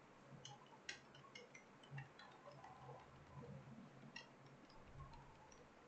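Faint, irregular clicking of computer keyboard keys being typed, several keystrokes with short pauses between them.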